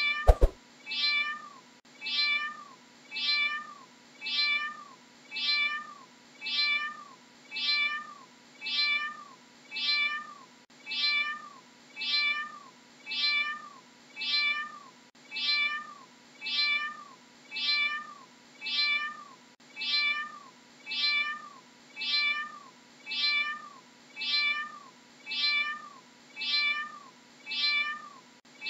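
Domestic cat meowing: the same short meow, rising then falling in pitch, repeated at an even pace of about three every two seconds.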